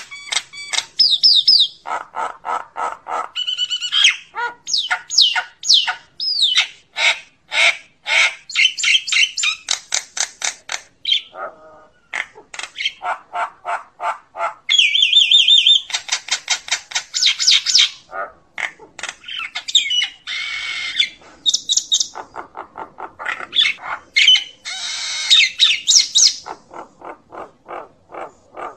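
Common myna calling: a fast, varied run of harsh chattering notes, clicks, croaks and rising and falling whistles, several a second with brief pauses, given as a call to the flock.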